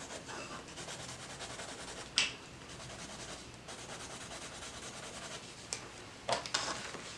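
Coloured pencil shading on paper: quick, repeated light scratching strokes, with a sharp tap about two seconds in and a few knocks near the end.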